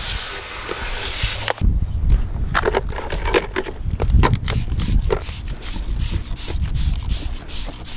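Garden-hose spray nozzle rinsing a car's alloy wheel: a steady hiss of water striking the wheel that cuts off about a second and a half in, then a run of short spray bursts at the rear wheel over a low rumble.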